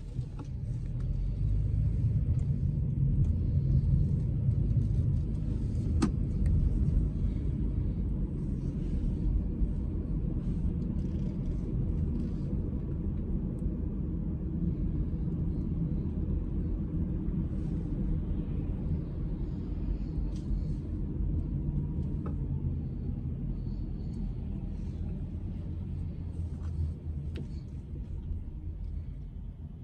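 Steady low rumble of a car driving along a road, with a single sharp click about six seconds in.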